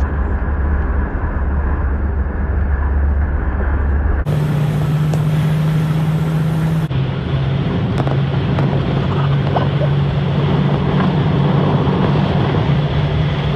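Motor vehicle driving at speed: a steady engine drone with road and wind noise. The drone changes suddenly in pitch and tone about four seconds in and again near seven seconds.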